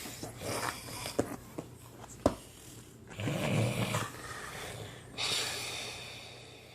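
Snoring in slow, noisy breaths, with a few sharp clicks in the first half, the loudest a little after two seconds in.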